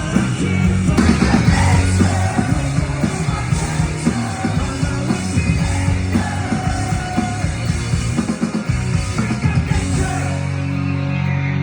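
Live rock band playing, with drums, guitars and sung, partly shouted vocals.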